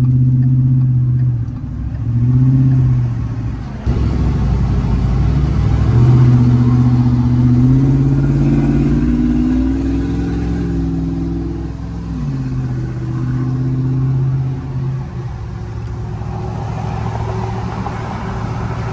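Supercharged 6.2-litre V8 of a Roush Ford SVT Raptor heard from inside the cab while driving on the freeway, over a steady rumble of road noise. The engine note climbs in pitch through the middle, drops sharply about twelve seconds in, then settles.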